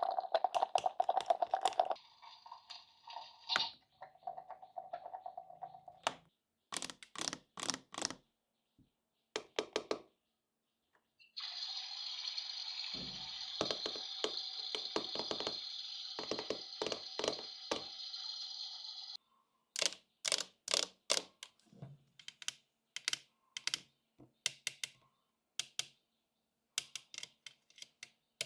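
Small hard plastic toy pieces being unboxed and handled, making a run of sharp clicks and taps. It opens with a couple of seconds of dense scratchy rustling, and a steady hiss runs for about eight seconds in the middle.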